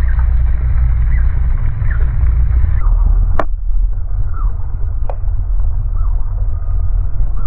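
Outdoor wind buffeting the microphone as a loud low rumble, with a few short falling bird chirps over it. There is a sharp click about three and a half seconds in and a fainter one a couple of seconds later.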